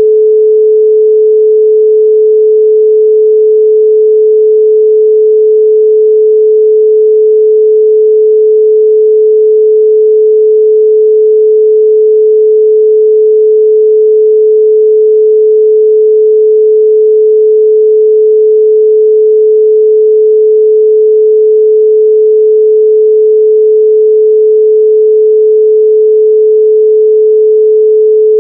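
Loud, steady 432 Hz pure sine tone, one unchanging pitch with no overtones.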